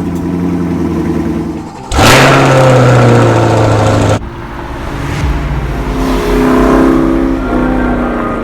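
Car engine running and revving, heard in several abruptly cut segments with sudden jumps in level.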